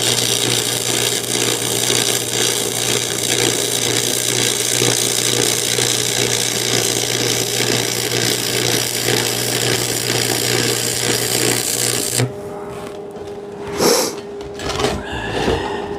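Stick-welding arc crackling and sizzling with a steady low electrical buzz from the welder, running about twelve seconds before it cuts off suddenly. A few short knocks follow near the end.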